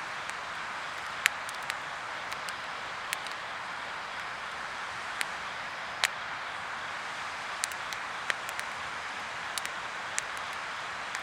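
Acacia firewood burning in a fire pit: a steady hiss with sharp, irregular crackles and pops, the loudest about a second in and again about six seconds in.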